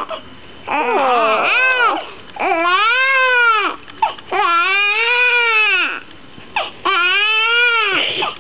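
Newborn baby crying hard: about four long wails, each rising and then falling in pitch, with short pauses for breath between them.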